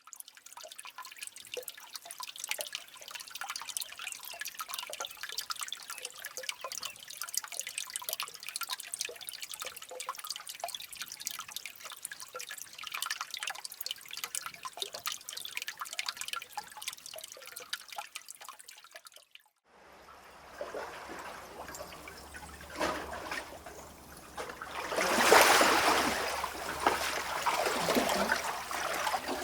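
Water dripping and trickling inside a sea cave, many small drips in quick succession. After a brief gap it changes to a steady low wind-driven rumble, the cave's own resonance, with sea water washing and swelling in, loudest a few seconds after the change.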